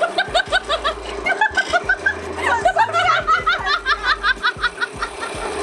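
A woman laughing in quick, high-pitched repeated bursts, with a short break about a second and a half in, over a steady hum.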